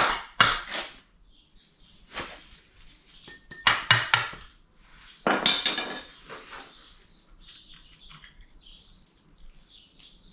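Metal tools and parts clinking and clattering as the water pump is unbolted and pulled off a VW T5 1.9 TDI engine, with a run of sharp clinks in the first six seconds, the loudest about five and a half seconds in, then quieter handling.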